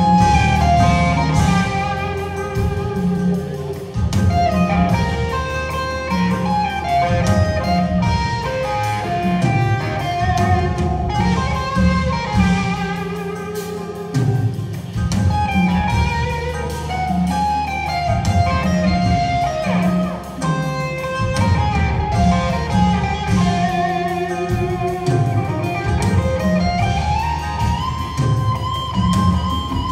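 Live jazz-fusion band playing: an electric guitar lead runs fast melodic lines over keyboards, bass, drums and congas. Near the end one note glides upward and is held.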